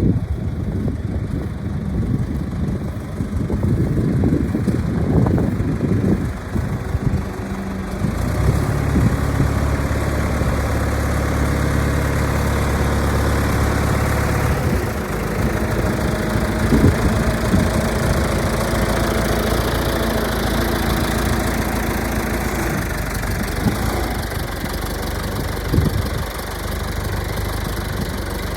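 John Deere 310-A backhoe's engine running, its note changing partway through, with uneven rumbling before it settles.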